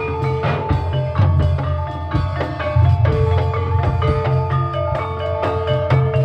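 Live ebeg accompaniment music: ringing struck tones of gamelan-style mallet percussion over a dense run of drum strokes and a heavy bass, played through a PA sound system.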